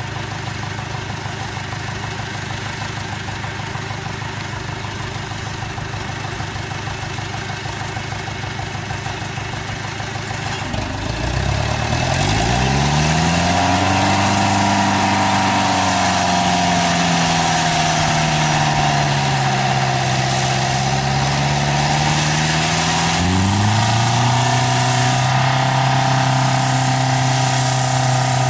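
Engine of a small tracked rice-sack carrier idling, then revving up about eleven seconds in as it pulls away. Its pitch rises, sags slowly, and climbs again to a steady higher run near the end.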